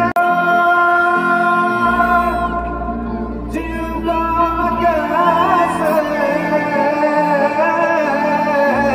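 Live amplified concert music: a male singer's voice over a band, first long held notes, then a wavering, ornamented melody from about halfway through, with a deep bass note coming in underneath.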